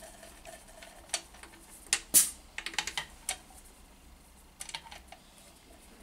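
Sharp metal clicks and taps as a compression tester's hose adapter is pulled from one spark plug well of an aluminium cylinder head and fitted into the next. The clicks are scattered and irregular, the loudest a little past two seconds in, with a quick cluster just after it and a few more near the end.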